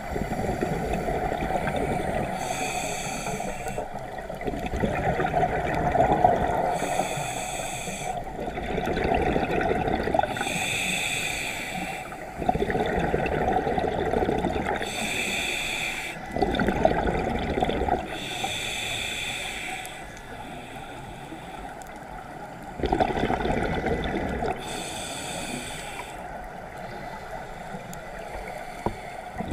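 Scuba diver breathing through a regulator underwater: a hissing inhale alternates every few seconds with a burble of exhaled bubbles.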